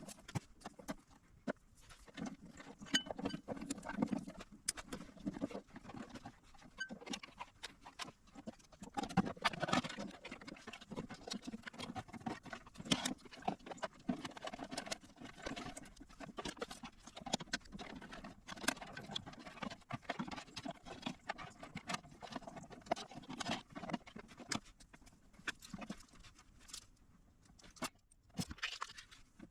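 Irregular clicks, taps and rubbing from hands handling and working on small hardware and a device's case.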